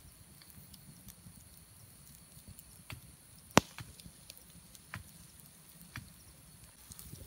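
Small wood campfire crackling: scattered sharp pops of burning wood, one much louder crack about three and a half seconds in.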